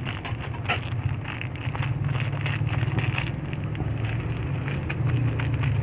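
Crackling, rustling handling noise close to the microphone, over a steady low rumble.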